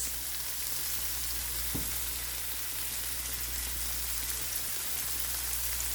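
Onions, garlic, ginger and sweet red pepper sautéing in olive oil in a hot pot, a steady sizzle, with one light knock about two seconds in.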